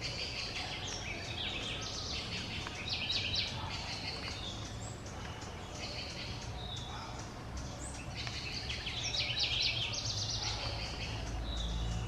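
Birds calling: many rapid high chirps and chattering, busiest about three seconds in and again near nine seconds in, over a steady low background rumble.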